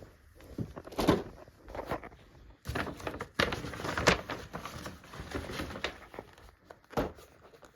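Objects being handled: rustling, with several short, light knocks, densest about three to four seconds in.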